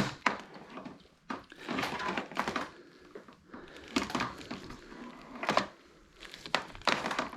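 Oxford heated grip being twisted and pushed onto the motorcycle handlebar over wet sealant: irregular short bursts of rubbing and scraping with a few sharp clicks.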